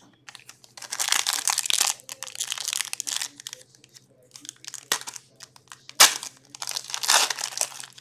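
Packs of hockey cards being opened by hand: wrappers crinkling and tearing in irregular bursts, with two sharp clicks about five and six seconds in.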